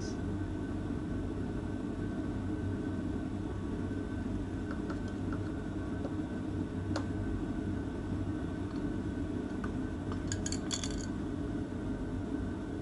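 A few light metallic clicks and clinks from tools and parts being handled, with a short cluster of clinks about ten seconds in, over a steady low hum.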